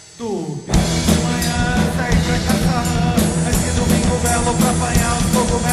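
Garage rock band music: after a short gap, a quick falling slide leads in, and under a second in the full band comes in loud, with drum kit and cymbals keeping a steady beat.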